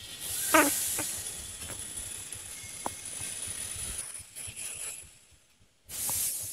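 Stainless steel blade holder and blades of a French fries cutting machine being handled while a new blade is fitted. There is a short metal scrape about half a second in, then a few light metallic clicks, over a steady hiss.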